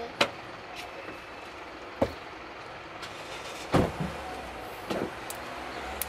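A few sharp knocks and clicks of a small package being handled and opened, over a steady low hum.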